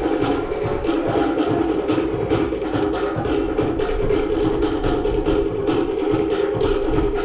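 Cook Islands drum ensemble playing a fast, driving ura pa'u rhythm for the drum dance, wooden slit drums beating out rapid, even strokes over deeper drums.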